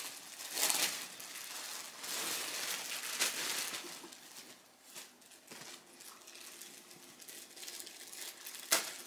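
Plastic packaging crinkling and rustling as items are handled and unwrapped, busiest in the first few seconds and then quieter, with one sharp click near the end.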